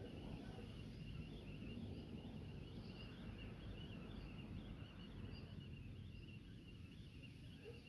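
Quiet outdoor ambience: a steady high-pitched chirring with a slight flutter, over a low background rumble.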